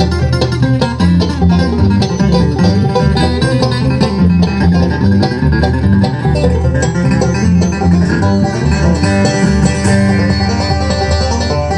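Bluegrass string band playing live, a fast run of plucked notes over a steady bass line, with no singing.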